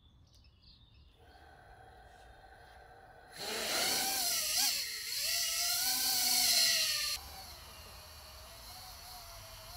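Small FPV quadcopter's brushless motors and propellers. Quiet at first, then about three seconds in it lifts off with a loud whine that rises and falls with the throttle. Near the end it settles into a fainter, steadier hovering whine.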